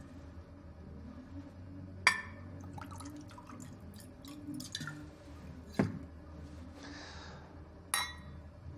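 A drink being poured from a bottle into drinking glasses: sharp glass clinks about two, six and eight seconds in, with fainter clinks and a short trickle between.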